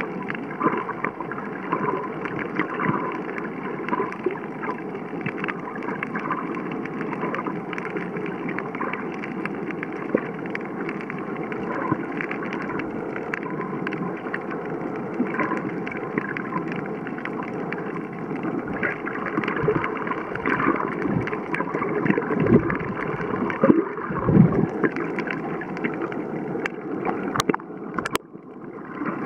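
Muffled underwater ambience picked up by a submerged camera's microphone: a steady wash of water noise, dotted with faint crackles and clicks and a few low thumps. Near the end there are two sharp clicks and a brief drop.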